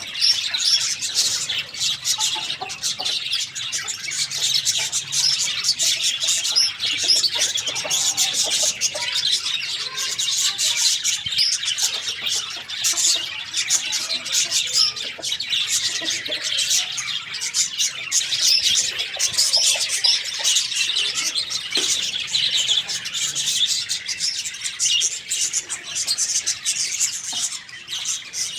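Many small birds chirping continuously, with short high chirps overlapping one another.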